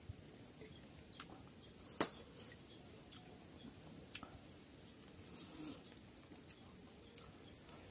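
Close-up eating sounds of a person eating rice and chicken curry by hand: scattered wet mouth smacks and clicks while chewing, the loudest about two seconds in, and a short breathy hiss a little after five seconds.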